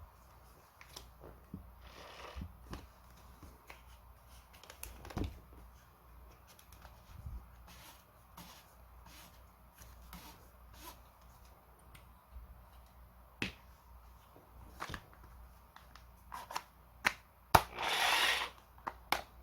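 Scattered light clicks and knocks of tools and parts being handled, with a brief rustling scrape near the end; no motor is running.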